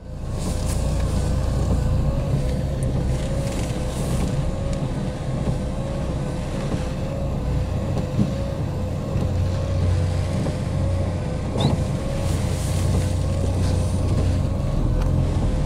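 Car running, heard from inside the cabin as it drives slowly through flooded roads in rain: a steady low engine and road rumble with a faint wavering whine.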